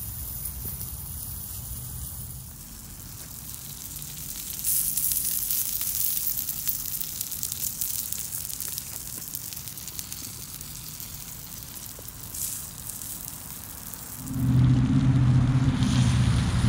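Tomahawk steak sizzling on a portable grill, a hissing crackle that swells about five seconds in and again briefly near twelve seconds. About fourteen seconds in, a loud, low, steady engine drone comes in over it and keeps going.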